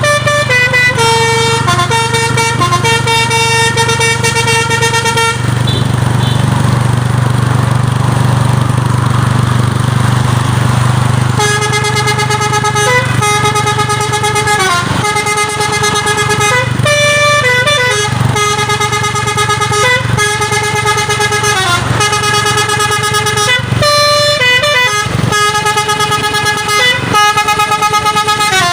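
Truck's basuri telolet musical horn playing a tune of held notes that step up and down in pitch. It breaks off for about six seconds after the first five and then starts again. A steady low hum runs underneath.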